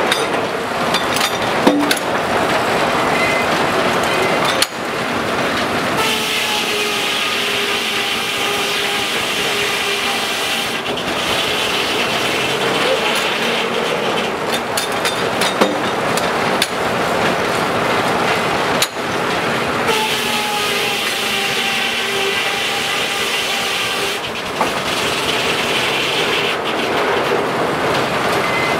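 Steam-powered sawmill running: steady machinery noise, with a circular saw blade whining in four stretches of several seconds each as it cuts through the log.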